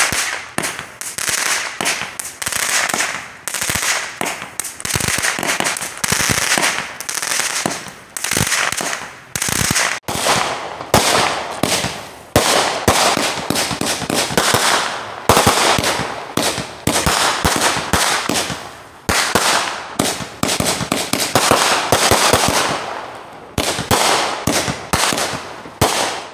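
Consumer fireworks going off in a long barrage: dense crackling and sharp bangs that swell and fade in bursts every second or so, without a break.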